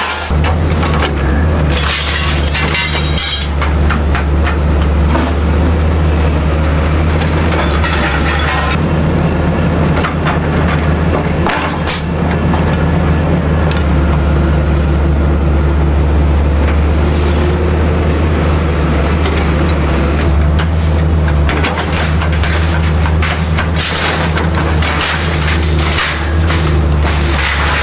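Excavator diesel engine running steadily while its hydraulic grab-and-shear attachment picks up and drops scrap metal, with bursts of clattering and crashing steel, loudest about two seconds in and near the end.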